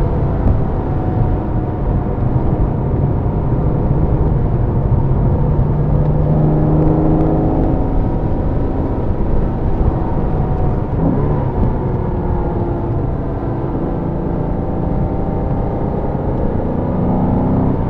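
Porsche sports car engine heard from inside the car on a track lap, pulling hard with its pitch climbing through the revs and dropping back at gear changes and lifts several times, over a steady rumble of road and tyre noise.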